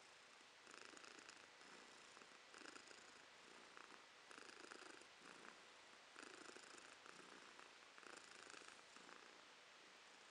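A domestic tabby cat purring softly close up, the purr swelling and easing in rounds about every two seconds as it breathes in and out.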